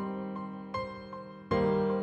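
Slow, gentle background music on piano or keyboard, with notes struck about every 0.4 s over held chords. A fuller chord comes in about one and a half seconds in.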